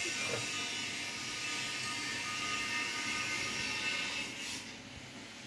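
Steady whir of cooling fans on an open PC test bench, with faint high steady tones over it; it drops in level about four and a half seconds in.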